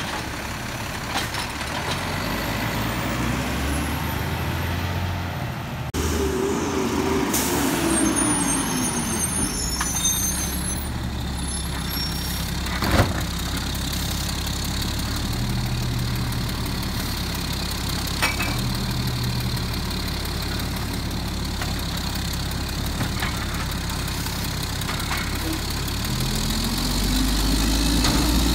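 Automated side-loader garbage truck working at the curb, its diesel engine and arm hydraulics running, with a sharp bang about halfway through. Near the end the engine rises in pitch and gets louder as the truck revs to pull away, puffing dark exhaust smoke.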